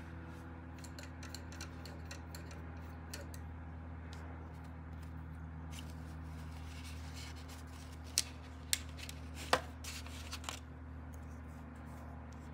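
Small clicks and taps from painting tools being handled, faint and scattered at first, then three sharp clicks close together past the middle and a few softer ones after, over a steady low hum.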